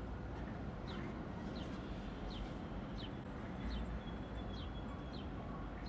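A small bird chirping, short high downward chirps repeating about once a second, over the low steady rumble of an idling car.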